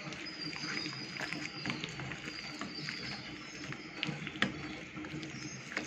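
Hands kneading chicken pieces into a thick, wet masala-and-cornflour coating in a stainless steel bowl, making soft squelching with a few light clicks.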